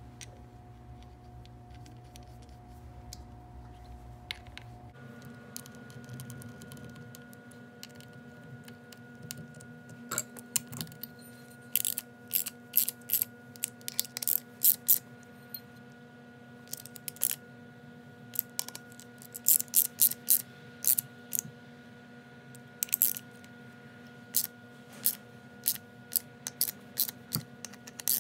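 Small ratchet and socket clicking in quick runs as bolts on a Vittorazi Atom80 gearbox case are turned, with short pauses between the runs, over a steady faint hum.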